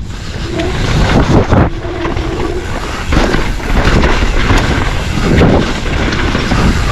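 Mountain bike being ridden hard down a dirt trail: wind buffets the camera microphone over a constant rumble of tyres on dirt and the rattle of the bike over bumps.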